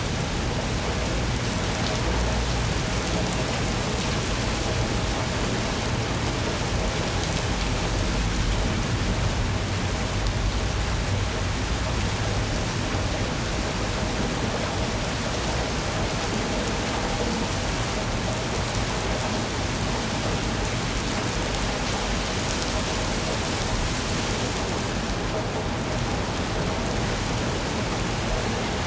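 Steady rain falling, an even constant hiss with a low rumble underneath.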